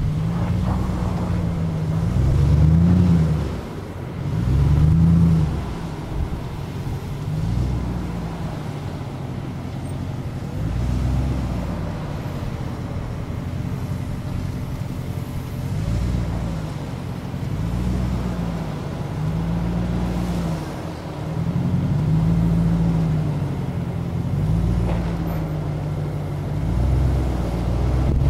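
Jeep Grand Cherokee WJ engine revving up and down over and over while crawling slowly off-road over steep ruts. The pitch rises and falls every second or two as the throttle is worked.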